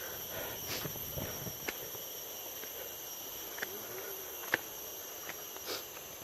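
Footsteps on a forest trail, a handful of sharp steps and twig snaps spread over several seconds, over a steady high-pitched drone of insects.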